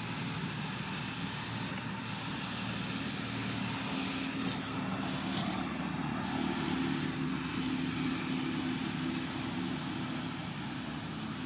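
Steady hum of an engine running, a low drone that rises slightly past the middle, with a few faint clicks.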